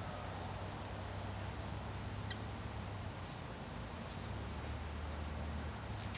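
A low, steady rumble of distant traffic, with a few short, faint, high-pitched bird chirps.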